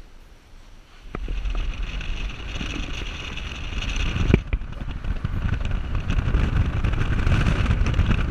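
Wind rushing over a camera microphone held out of a moving car's window, with road noise, starting about a second in. One sharp knock comes a little past the middle.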